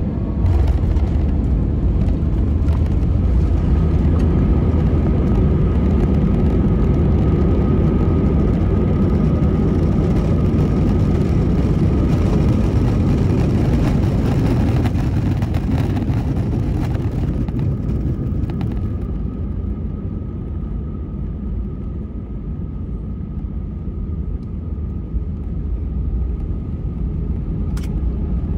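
Airbus A320 cabin noise on the landing roll: a loud, steady rumble of the engines and the wheels on the runway as the airliner slows with its ground spoilers raised. After about 18 seconds the hiss fades and the rumble eases as the speed drops, and a single short click comes near the end.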